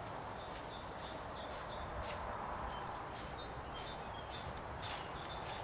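Small birds chirping and singing in short high notes over a steady outdoor hiss, with a few soft crunches of footsteps on the leaf-covered track ballast.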